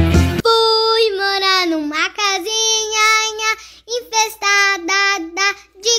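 A young child singing a Portuguese children's song, unaccompanied, after a burst of guitar music cuts off about half a second in.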